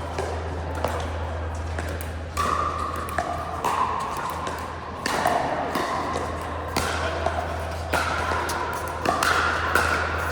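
Pickleball paddles striking a hollow plastic ball: sharp pops at irregular intervals, about one a second, over a steady low hum.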